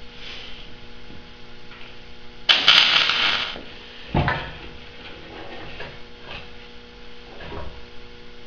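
Steel lever linkage of a homemade power grader being worked by hand: a loud scraping rasp of metal about two and a half seconds in, lasting about a second, then a heavy clunk and a few lighter knocks, over a steady electrical hum.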